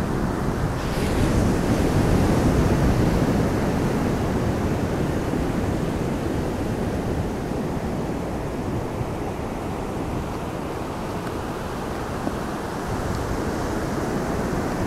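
Steady rushing of ocean surf, mixed with wind on the microphone.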